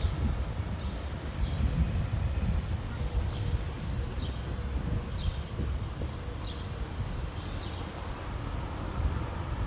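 Small birds chirping repeatedly, many short high falling chirps, over a steady low rumble.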